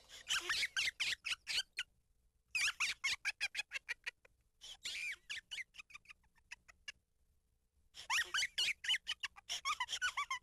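Squeaky, high-pitched cartoon-character chattering, in four bursts of rapid gliding chirps with short pauses between them.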